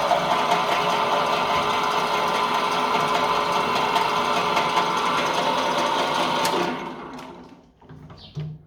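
2M112 bench drill press running steadily, then switched off about seven seconds in, its motor and spindle winding down over about a second. A few faint knocks follow near the end.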